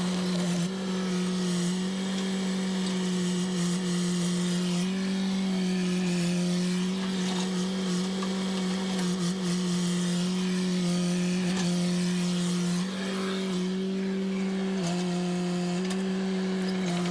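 Chainsaw running at high speed, cutting wood, with a steady high engine note that shifts slightly in pitch a few times.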